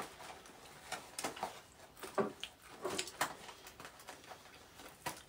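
Close-miked eating sounds, chewing and small mouth noises, mixed with the crinkle and rustle of a cardboard box being opened, heard as a scatter of short clicks and crackles.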